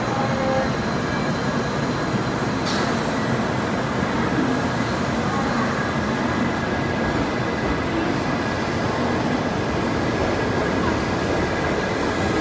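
Shinkansen Type 923 "Doctor Yellow" electric test train moving slowly along a station platform: a steady rumble of wheels and running gear, joined by a high hiss about three seconds in.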